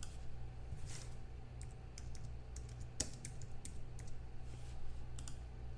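Computer keyboard typing: scattered, irregular light key clicks over a steady low hum.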